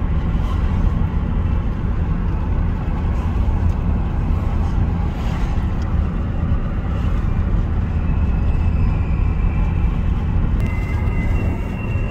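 Steady low rumble of road and engine noise inside the cabin of a moving vehicle. A faint high-pitched tone comes in near the end.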